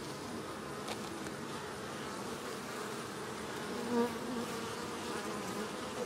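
Honey bees humming in an open hive, the steady buzz of a colony covering a brood frame and the hive box, briefly louder about four seconds in.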